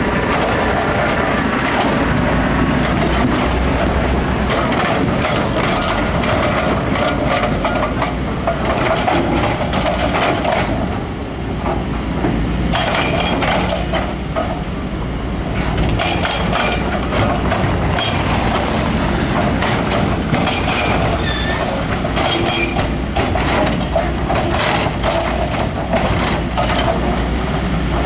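Heavy diesel earthmoving machinery at work: a steady low engine rumble under continual metallic clanking and clattering.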